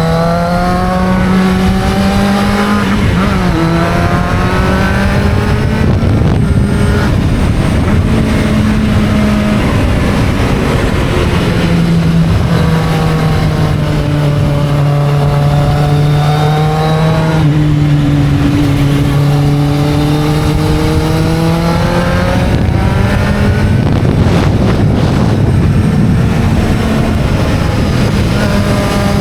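Kawasaki Z750 motorcycle engine under way, its note rising as it pulls through the revs and dropping sharply at each gear change, over a steady rush of wind and road noise.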